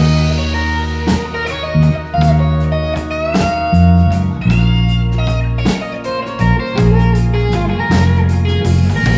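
Live blues band playing an instrumental break: slow electric guitar lead with bent, gliding notes over bass and drums.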